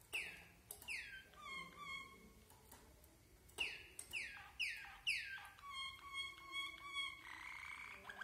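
A Waterslager (Malinois) canary singing: bursts of quick swooping notes that fall sharply in pitch, then held whistled notes broken into a fast rolling pulse, ending in a rapid buzzy trill.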